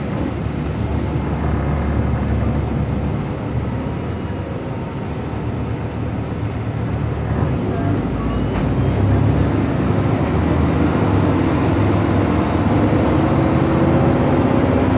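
Cummins ISL9 diesel engine and drivetrain of a 2012 Gillig Advantage city bus, heard from inside the cabin while running. The drone grows louder about halfway through, and a thin high whine joins it.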